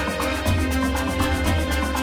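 Background music with a quick steady beat over sustained bass and chords.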